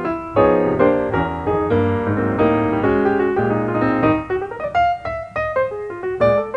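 Background piano music: a run of chords that thins to single melody notes about four seconds in.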